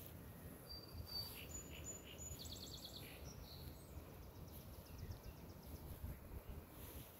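Songbirds singing faintly: a thin high whistled note, then quick runs of repeated high notes and a trill, over a low rumble.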